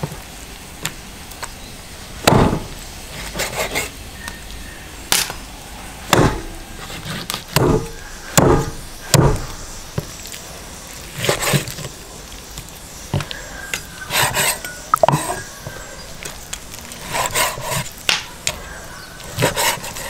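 Knife and cleaver chopping and cutting raw nutria meat on a wooden cutting board: irregular chops, several landing as heavy thuds, mixed with lighter knocks of the blade on the wood.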